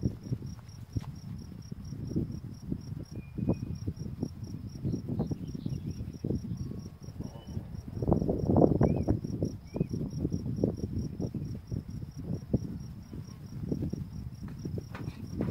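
A cricket chirps steadily in a rapid, even pulse. Over it runs a louder, uneven low rustling rumble with small crackles, strongest about eight seconds in.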